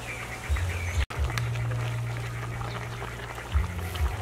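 A metal ladle stirs a pot of pork-feet and bamboo-shoot soup, giving a few dull knocks, over a steady low hum. Faint rapid chirping runs in the background, and the sound drops out for an instant about a second in.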